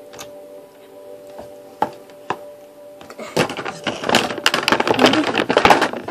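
A few light clicks, then from about three seconds in a loud, busy rustling and clattering of small items being rummaged through and handled, like someone digging through make-up for the next product.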